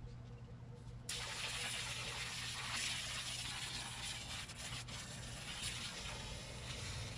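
Garden-hose turbo nozzle spraying a jet of water, a loud hiss that starts suddenly about a second in and keeps going.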